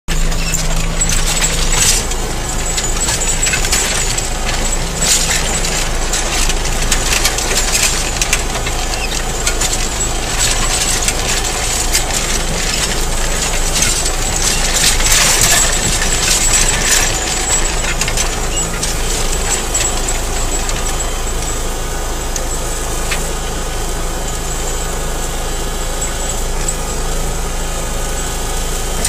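Tractor engine running steadily under load while pulling a Kverneland mounted plough through stony ground, with frequent knocks and clatter of stones against the plough bodies that thin out in the second half.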